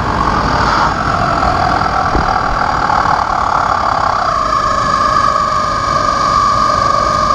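Rubber screaming chickens jammed into a kei truck's exhaust pipe, blown by the exhaust into one continuous scream over the engine as the truck drives past; the pitch shifts about four seconds in.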